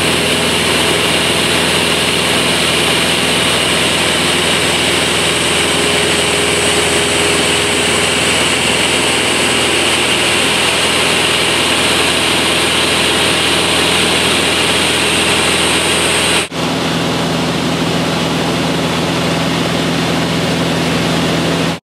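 Steady drone of a propeller aircraft's piston engine heard from inside the cabin. About 16 seconds in it breaks off for an instant and resumes with a slightly different tone, then stops abruptly near the end.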